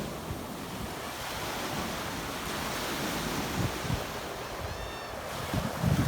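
Ocean surf washing steadily onto the shore, with wind buffeting the microphone in low rumbles that grow stronger near the end.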